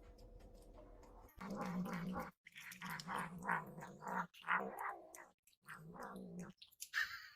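A cat calling over and over: about four long calls with short breaks between them, starting about a second and a half in.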